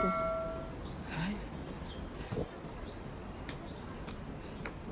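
Insects chirring steadily in a high, continuous drone. The ringing of a struck bell-like metal tone dies away in the first second.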